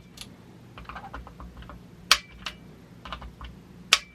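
A torque wrench ratcheting on the adapter-plate bolts, with fainter ticks in between. Its release gives a sharp click twice, about 2 and 4 seconds in, as each bolt reaches the set torque of 20.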